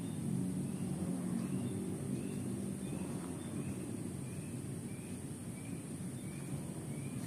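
A forest bird repeating a short, high chirp about one and a half times a second, starting about a second and a half in. Under it runs a steady low rumble and a constant high hiss.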